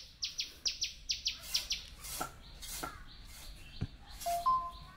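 Small bird chirping: a quick run of short, high, falling chirps, about five a second, for the first couple of seconds, then scattered chirps.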